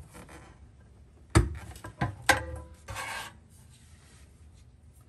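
Hard plastic knocks as the black plastic evap canister is handled against the car's underbody, three sharp knocks within about a second, the first the loudest, followed by a brief rubbing scrape.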